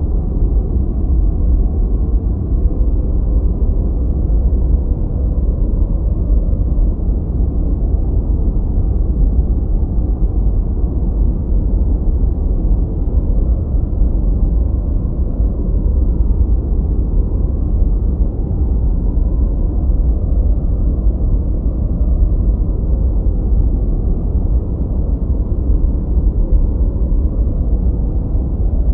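Gentle white noise for sleep, filtered so that it sounds deep and muffled: a steady low rumble with no hiss on top. It holds even throughout.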